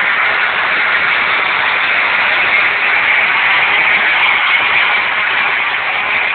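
Pack of 250cc two-stroke Grand Prix motorcycles racing at full throttle: a loud, steady blended engine sound with no single bike standing out.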